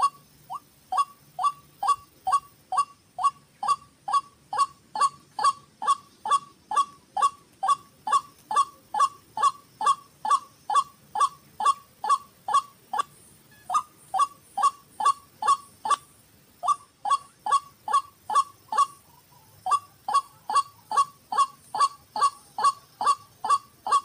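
White-breasted waterhen calling a fast, even series of short 'ruak' notes, about two or three a second, with three brief breaks in the second half.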